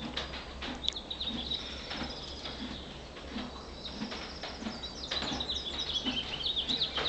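Small birds chirping and twittering in quick, high runs of notes, busiest about a second in and again from about five seconds on.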